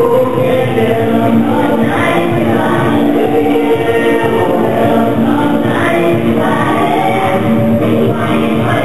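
Music with a choir of voices singing together.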